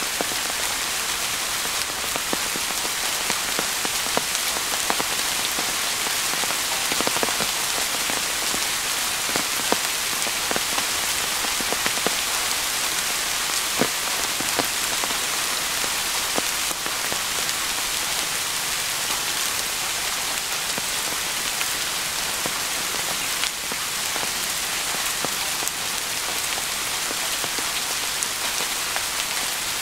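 Heavy rain falling steadily, with many sharp drop ticks scattered through it.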